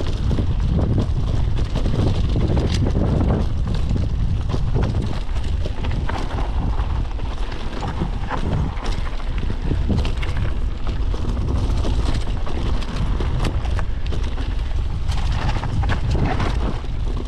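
Wind buffeting the microphone while a mountain bike rolls down a dry dirt trail, with the knocks and rattles of the bike jolting over bumps and ruts throughout.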